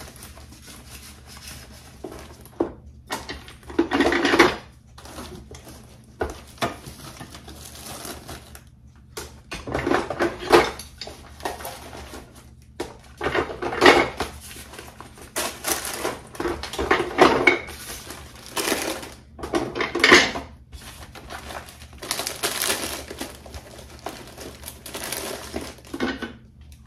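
Irregular rustling and crinkling of plastic-wrapped food, with knocks and clatter, as lunches are packed into soft insulated lunch bags.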